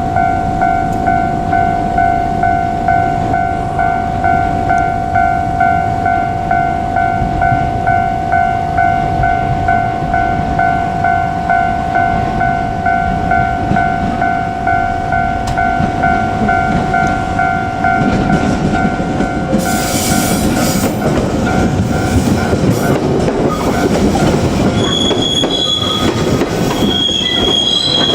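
Japanese level crossing warning bell ringing in steady electronic clangs, about one and a half a second. About two-thirds of the way in, a JR Kyushu 817 series electric train rolls through with a rumble, and its wheels squeal in high, broken tones near the end.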